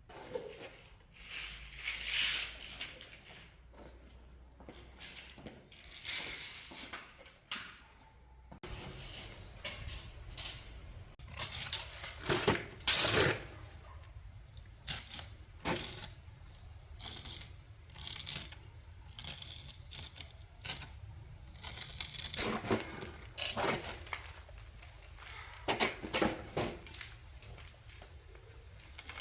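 Irregular rustles, scrapes and light clinks in scattered short bursts, loudest about twelve to thirteen seconds in.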